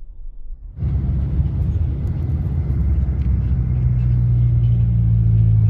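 Bus engine and road rumble heard from inside the cabin. It cuts in abruptly about a second in, then runs as a steady low engine drone that grows a little louder toward the end.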